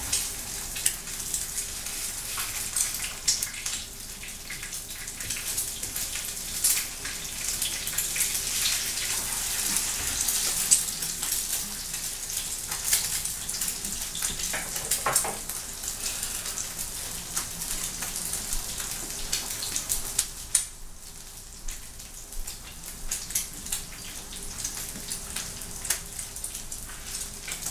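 Eggs frying in a skillet: a steady crackling sizzle with many small pops and spatters, easing off a little about twenty seconds in.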